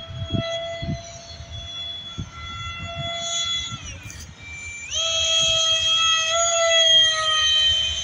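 Electric ducted-fan motor of an RC F-22 jet whining in flight. Its pitch drops smoothly as the throttle is eased back, then jumps up and gets louder about five seconds in as power comes back on. There are gusts of wind on the microphone in the first second.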